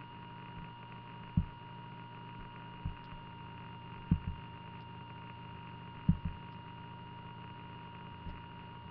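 Steady electrical hum with a faint constant high tone, broken by short soft low thumps every one to two seconds, two of them doubled.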